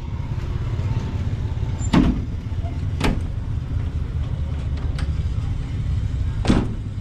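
Steady low outdoor rumble, with a few sharp knocks about two, three and six and a half seconds in.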